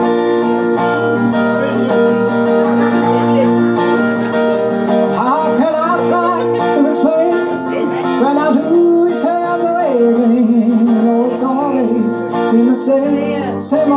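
Acoustic guitar strummed steadily, with a held melody line over the chords that slides and wavers in pitch.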